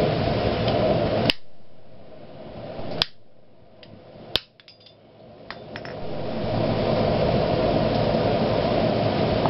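Three sharp hammer blows, about a second and a half apart, on a hot iron bar held in a steel offset jig on the anvil, followed by a few lighter metal clicks and taps. A steady rushing background noise runs underneath; it drops away after the first blow and builds back by about six seconds in.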